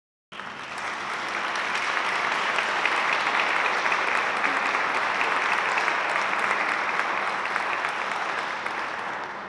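Audience applauding: a dense patter of hand claps that swells over the first couple of seconds, holds, then dies away near the end.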